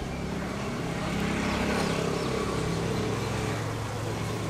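Steady hum of a motor vehicle's engine running, growing a little louder about a second in.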